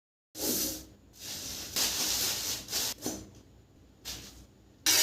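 Handling and eating a meal of rice and potato–pointed gourd curry: a series of short, noisy rustling and squishing bursts with brief pauses between them.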